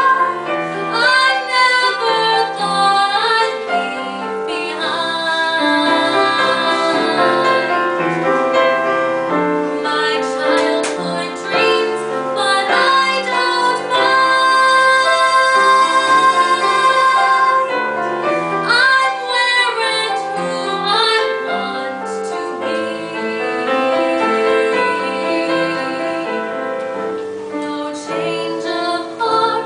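Music: a female voice singing a melody over piano accompaniment.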